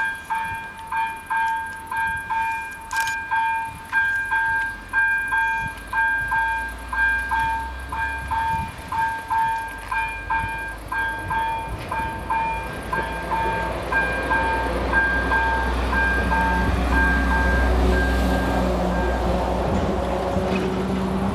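Level crossing warning bell on AŽD 71 crossing signals, ringing at about two dings a second while the barriers lower; it stops a couple of seconds before the end. From about halfway a low rumble builds and grows louder: an approaching train.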